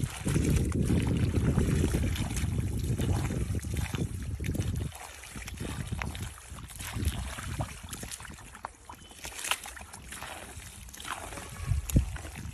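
Hands digging and squelching through soft mud and shallow muddy water, with scattered wet slaps and splashes. A heavy low rumble covers the first five seconds, and a sharp slap comes near the end.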